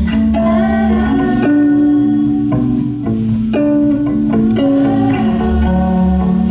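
Live band music led by electric guitar over a steady bass line, with cello and drums in the band.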